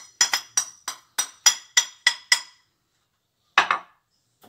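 Kitchenware clinking: about ten quick taps, roughly four a second, each with a short bright ring, as ground cardamom is knocked loose from a ceramic container into a glass bowl. One more tap comes about three and a half seconds in.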